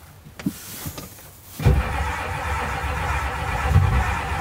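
Cold start of a Ford F-250's 7.3-litre IDI V8 diesel: quiet for about a second and a half, then the engine suddenly comes in and keeps running steadily with a heavy low pulsing.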